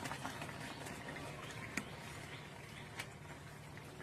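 Faint steady rush of a swollen river, with a couple of light clicks.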